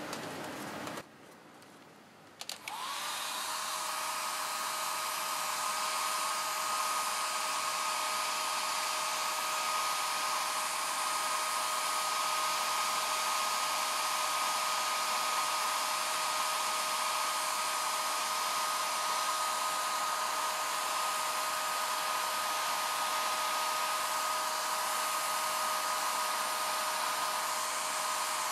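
Hairdryer switched on about two and a half seconds in, then running steadily: an even rush of air with a constant whine from its motor.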